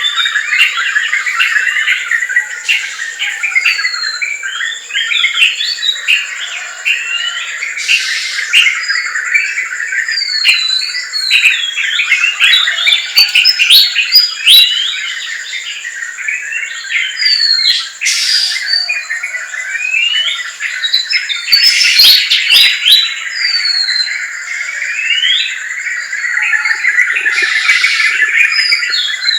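Dense chorus of many forest birds chirping, trilling and whistling, with short calls overlapping continuously. A steady high-pitched whine runs underneath.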